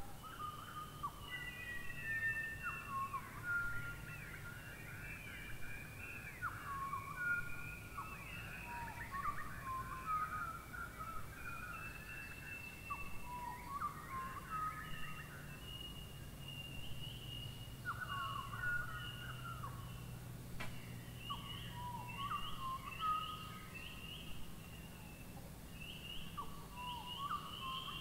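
Many birds whistling and chirping in a dense, continuous chorus of short, mostly falling notes, over a low steady rumble.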